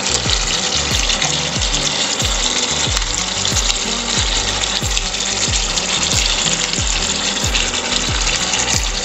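Background music with a steady thudding bass beat, over a continuous sizzle of mutton curry cooking in a nonstick pan.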